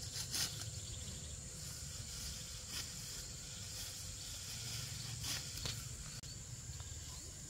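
Outdoor rural ambience: a steady high insect drone over a low wind rumble, with a few short rustles or crackles scattered through it.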